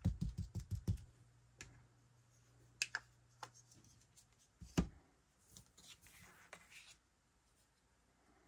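Quick, even tapping of paper-crafting supplies on a desk, about seven taps a second, that stops about a second in. Then scattered light clicks and paper rustling as the supplies are handled, with one sharper knock about halfway.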